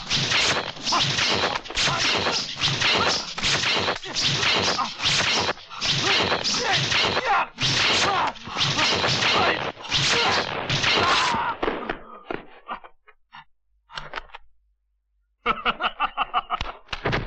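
Kung fu film fight sound effects: a fast, dense run of dubbed punch and kick impacts with whooshes of swung limbs. The blows thin out about twelve seconds in and stop for a moment, then a new flurry of hits starts near the end.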